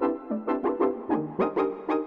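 Sequential Prophet 6 analog synthesizer playing its 'Ritz Synth' patch: a fast run of short plucky notes, about five or six a second, each with a bright attack that quickly dies away, over a lower held note that steps down in pitch twice.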